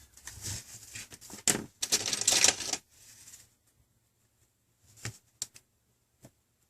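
Clicks, taps and scrapes of hard plastic and small metal parts being handled. A busy run of rattling clicks comes first, then a few separate sharp clicks near the end.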